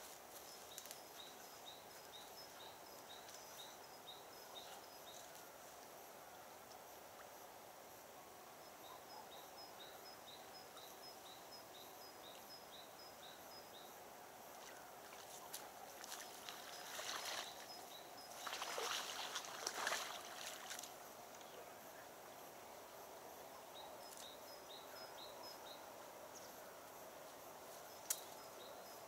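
Quiet riverside ambience: a bird repeats short high chirps in runs, about four a second. A few seconds of rustling come just past the middle, and a single sharp click near the end.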